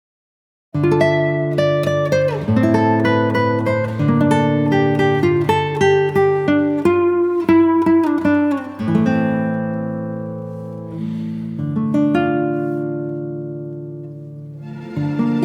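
Music of a picked acoustic guitar, starting after a brief silence; in the second half a chord rings on and slowly fades before the playing picks up again near the end.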